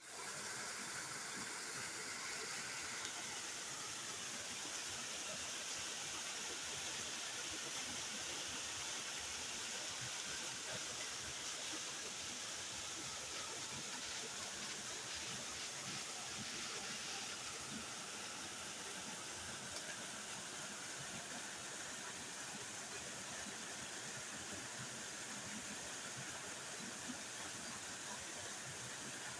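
Waterfall: water falling and splashing in a steady rush.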